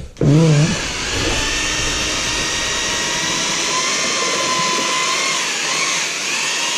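Electric paddle mixer running, stirring a quick-setting plaster mix in a bucket. Its motor gives a steady whine that wavers slightly in pitch in the second half.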